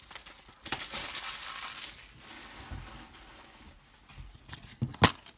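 Thin plastic shrink-wrap crinkling as it is pulled off a DVD case. Near the end comes a single sharp click as the plastic DVD case snaps open.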